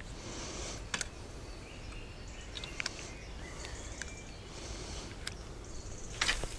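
Open-air pond-side background with faint bird chirps, broken by a few sharp clicks and, near the end, a short burst of clothing rustle against the microphone as the angler handles his ultralight spinning rod.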